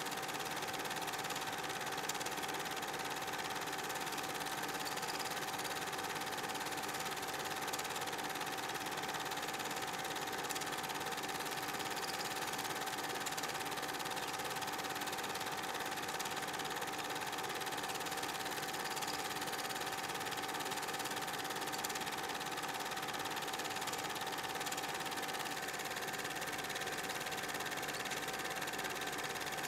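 Super 8 film projector running steadily, its motor and film mechanism making an even whirring hum with a few constant tones.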